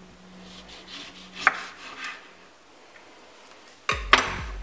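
Ceramic knife cutting a lemon on a wooden cutting board: a sharp click of the blade on the board about a second and a half in, then a louder knock of the knife on the board near the end.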